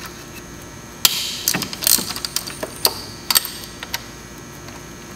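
Metal clicks and scraping of a 5 mm Allen bit driver working out bolts on a VW BEW TDI engine's intake pipe. There are about eight sharp clicks, irregularly spaced, from about a second in to past three seconds, then it goes quiet.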